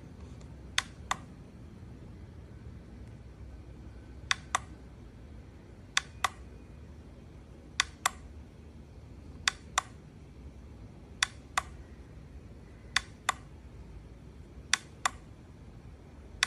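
Push buttons on a digital kitchen scale being pressed over and over: eight pairs of short, sharp clicks, each pair about a third of a second apart, recurring roughly every second and three-quarters.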